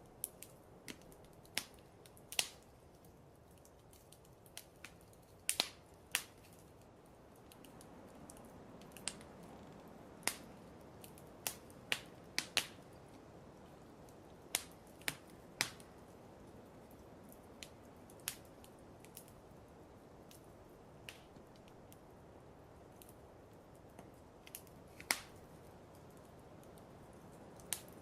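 Wood fire crackling: irregular sharp pops and snaps, some loud, over a soft steady hiss.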